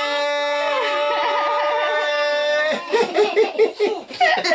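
Children's voices holding one long drawn-out shout, the end of a chanted 'Eduplay!' greeting. About three seconds in it breaks off into giggling and laughter.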